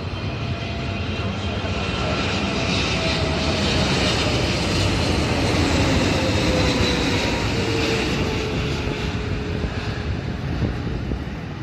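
Jet airliner passing, its engines roaring louder to a peak midway and then fading, with whining engine tones that fall in pitch as it goes by.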